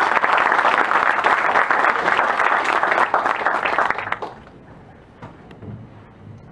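Audience applauding, the clapping dying away about four seconds in and leaving faint room tone.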